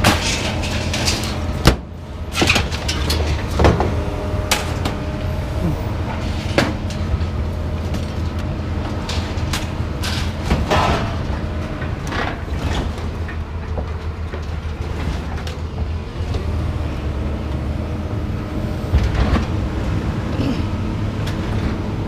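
A vehicle engine running steadily, with sharp knocks and clanks scattered through it, the loudest a little under two seconds in.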